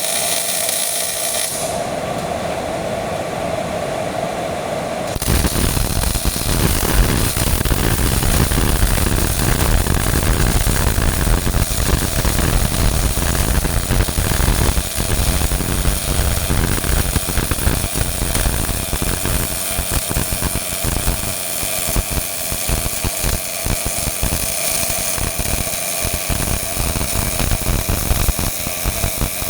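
A steady hum, then about five seconds in a MIG welding arc strikes and crackles continuously as a bead is run, the crackle turning more broken in the last several seconds.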